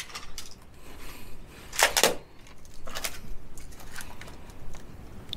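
Footsteps crunching on dry stalks and grit on a dirt floor: a few irregular crunches and clicks, the loudest about two seconds in.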